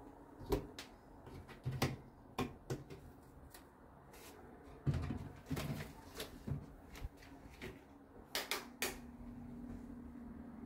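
Bathroom vanity cabinet door on concealed hinges being handled and swung open: a series of sharp clicks and knocks, with a heavier bump about five seconds in and two sharp clicks near the end. A low steady hum comes in near the end.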